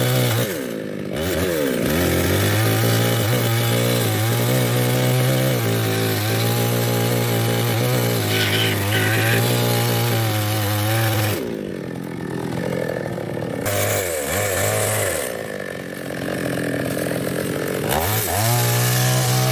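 Small New West two-stroke chainsaw cutting into a mahogany trunk at full throttle. The engine steadies at high revs while it cuts, then drops off and revs back up several times: briefly near the start, twice past the middle and once near the end.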